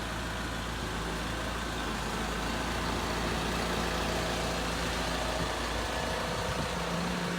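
Forklift engine running steadily while it holds and side-shifts a heavy load.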